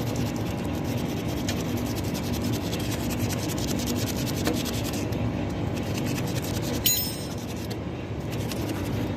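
Rapid rasping scrape for about five seconds over a steady low hum, then a brief metallic ring about seven seconds in.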